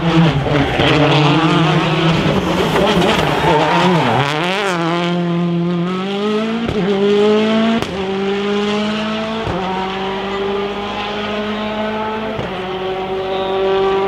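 Citroën DS3 rally car engine at full throttle. Its pitch dips about four seconds in as it brakes and shifts down. It then climbs again through the gears, with sharp upshifts roughly every two to three seconds.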